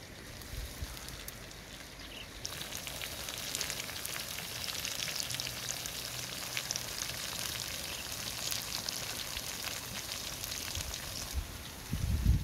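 Climbing perch frying in oil in an open pan over a wood fire, a steady sizzle with fine crackles that turns much louder about two and a half seconds in as the lid comes off. A low bump near the end as the lid goes back on.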